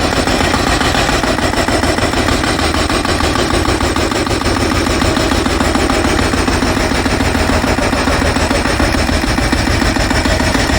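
Jackhammer breaking up the ground, hammering rapidly and continuously, loud.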